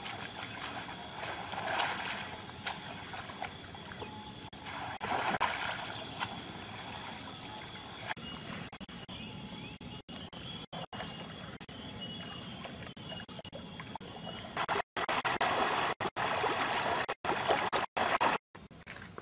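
River water trickling and splashing around a cow being bathed, with a bird giving two short runs of quick high chirps. The sound drops out briefly several times near the end.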